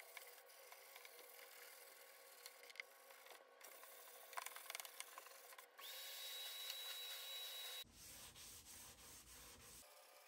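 Near silence, with a few faint rubbing sounds of a hand and sandpaper on the bare wooden cabinet top, clustered about four seconds in.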